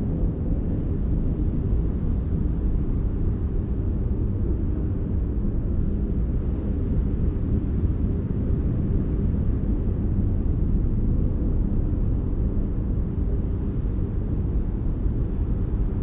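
Deep, steady rumble of an ocean wave, almost all low end with little hiss above it.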